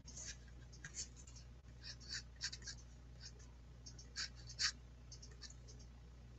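Pastel scratching on paper in short, irregular strokes, the loudest about four and a half seconds in, as the pastel is worked and blended into the drawing.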